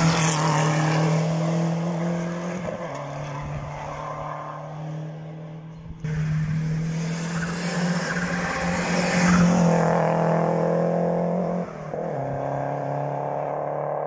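Rally car engines held at high revs as the cars race past one after another, each pass ending in a sudden break to the next.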